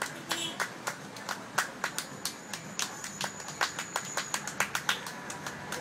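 Two men clapping their hands in a quick, uneven samba beat, about three to four sharp claps a second.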